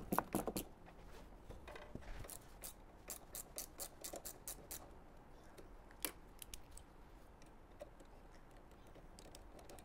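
Light metallic clicks and ticks of 4 mm hex keys working the brake pad retaining bolts on a go-kart brake caliper as the bolts are undone. A few sharper clicks come at the start, then a quick run of evenly spaced ticks from about two to five seconds in, and one more click about six seconds in.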